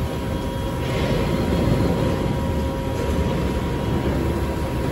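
Industrial shredding plant machinery running: a steady, even rumble with a faint constant hum.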